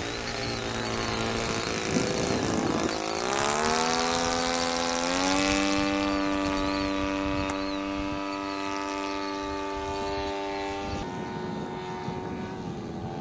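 Small R/C model airplane engine and propeller in flight overhead, a steady buzzing note whose pitch sags and then climbs over a couple of seconds, holds steady, then drops near the end.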